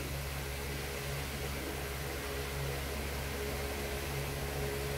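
Steady low machine hum over an even hiss, unchanging throughout.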